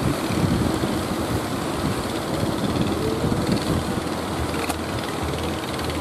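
Strong wind rumbling on the microphone over the wash of breaking surf.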